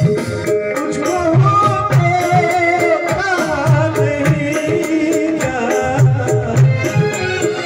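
Live folk-style song performance: a male voice singing a wavering melody over harmonium, with tabla strokes and a run of sharp, regular percussion ticks.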